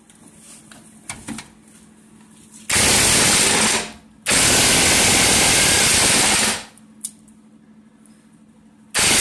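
Impact wrench hammering on a 19 mm suspension bolt to loosen it, in three bursts: about a second long, then about two seconds, then starting again near the end, with faint clicks before the first.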